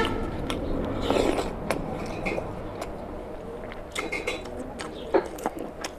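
Close-miked eating of oily mutton fat curry by hand: wet chewing and mouth smacks, with soft squelches and sharp little clicks as fingers pick through the food. A wet squelchy burst comes about a second in and a louder click near the end.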